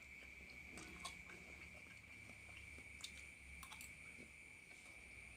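Faint chewing with a few small, soft clicks, over a steady high-pitched whine.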